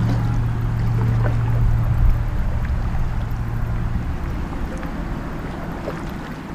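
Kayak paddle strokes: the blades dipping and pulling through calm water, with drips and small splashes. A steady low hum underlies the first few seconds and stops about four seconds in.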